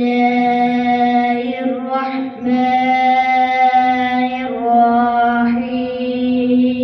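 A boy reciting the Quran in a melodic, chanted style, holding long drawn-out notes. The notes break briefly about two seconds in and again about four and a half seconds in.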